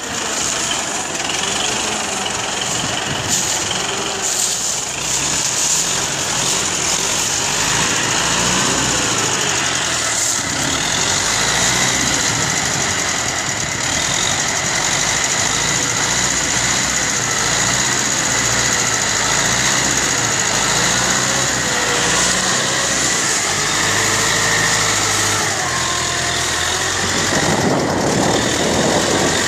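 Universal 650 tractor's four-cylinder diesel engine running hard under heavy load, its pitch wavering up and down as it pulls. A rougher rush of noise joins in near the end.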